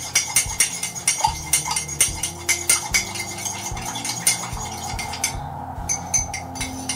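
A metal teaspoon stirring in a mug, clinking against its sides several times a second. The clinks thin out near the end.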